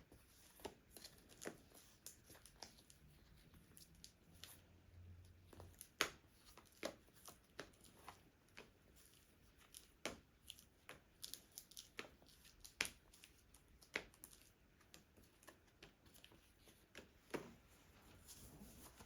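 Playing cards and the cardboard box of the Lost Cities card game being handled: scattered light taps, clicks and rustles at irregular intervals, the sharpest about six seconds in.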